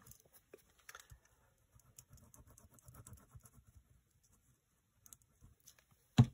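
Faint rustling and light tapping of paper and lace scraps handled on a cutting mat, with one sharp knock near the end.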